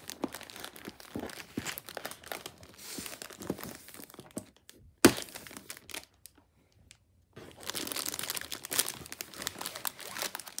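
Clear plastic packaging crinkling while a cardboard carry case is handled. The rustling comes in two spells with a quieter gap between. A single sharp knock about halfway is the loudest sound.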